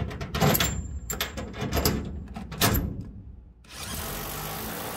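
Metal clinks and knocks of a socket and bolt being handled and fitted, then, about three and a half seconds in, a cordless ratchet runs steadily, driving down a body-mount lock nut.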